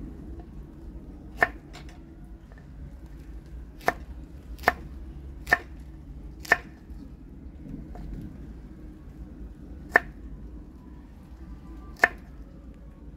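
Knife chopping on a cutting board: seven single, sharp strikes at uneven intervals, three of them close together in the middle.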